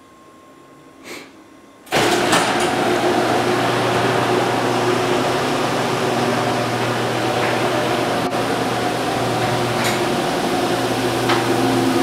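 Electric garage door opener starting abruptly about two seconds in and running steadily with a low hum, raising a sectional garage door along its tracks, with a few faint clicks.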